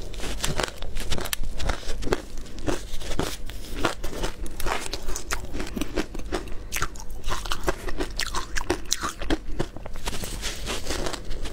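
Close-miked ice eating: frozen matcha-coated ice balls crunching and cracking as they are bitten and chewed, many sharp crunches in quick, irregular succession.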